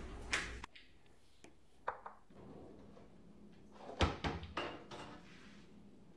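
Kitchen knocks and clatter, like cupboard doors, drawers or cookware being handled: a light knock about two seconds in and a sharper thud just after four seconds, followed by a few smaller knocks.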